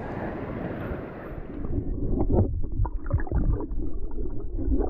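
Shallow creek water rushing, its hiss fading away after about a second as the camera goes under the surface. From then on the creek is heard underwater: loud, muffled gurgles and knocks.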